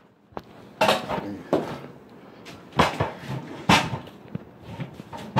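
A series of about six uneven knocks and clatters from wooden kitchen cabinet doors being moved and bumped.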